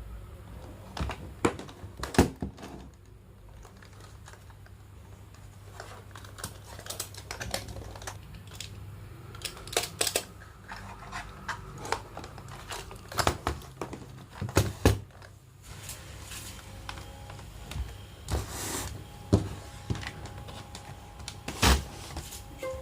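Keys of a MageGee TS91 membrane gaming keyboard being pressed, sold as a 'clicky' membrane board: irregular sharp clicks, single and in quick clusters, with short pauses between.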